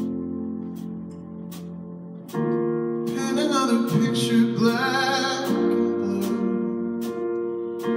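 Live band playing a slow ballad: sustained keyboard and guitar chords that change twice, with light drum or cymbal ticks about once a second. A male voice sings a phrase from about three seconds in.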